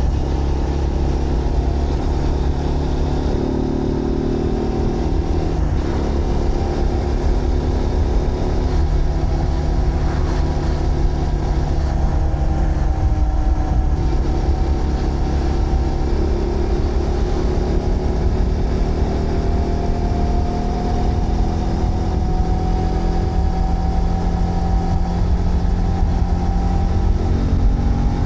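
Zontes GK 125 motorcycle's 125cc engine running under way. Its pitch shifts in steps during the first few seconds, then rises slowly and steadily through the second half as the bike speeds up.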